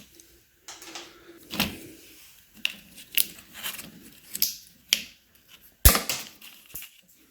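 Plastic wire ties being cut and pulled free: an irregular series of sharp clicks and snaps with some handling noise, the loudest snap about six seconds in.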